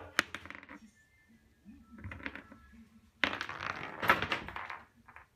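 Hard toy ball from a kendama knocking and clattering on a wooden floor as cats bat it about. There is a sharp knock just after the start, a few clicks about two seconds in, and a longer run of clatter from about three to five seconds in.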